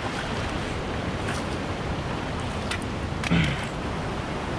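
Steady rush of river water running over rocks and small rapids, with a few faint clicks and a brief vocal sound about three seconds in.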